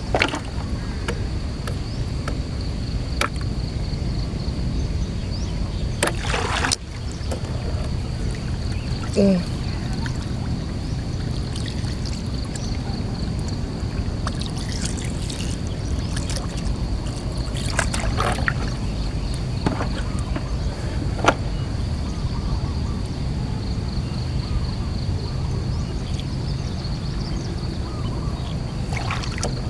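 Small boat on the water: a steady low hum under trickling water, with a few sharp knocks and a short squeak about nine seconds in, and a constant thin high whine throughout.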